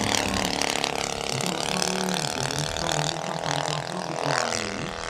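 Two-cylinder four-stroke petrol engine (Valach Motors VM 120 B2-4T) of a giant-scale RC Zlin XII model airplane running steadily in flight, turning its propeller, getting a little quieter near the end.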